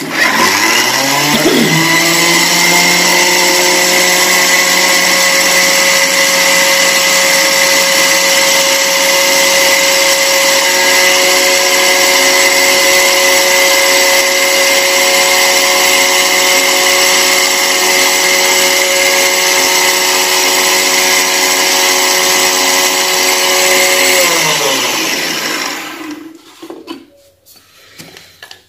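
Sujata mixer grinder with a steel jar grinding a dry mix of rice and coarse flour. The motor spins up with a rising whine, runs at a steady high whine, then winds down and stops about 25 seconds in. A few light knocks come near the end as the jar is handled.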